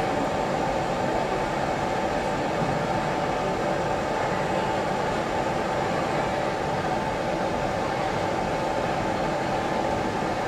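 Steady restaurant room noise: an even rushing hum with no distinct events.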